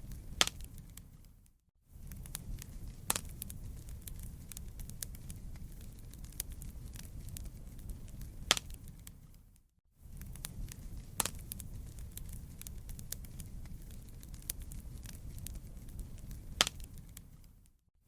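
Wood campfire crackling: a steady low rumble of burning with frequent sharp pops and snaps, several of them loud. The sound dips out to silence for a moment about two seconds in, again about ten seconds in, and at the very end.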